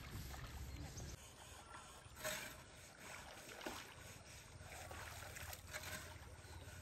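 Faint sloshing of shallow river water, with a soft splash about two seconds in and another shortly after.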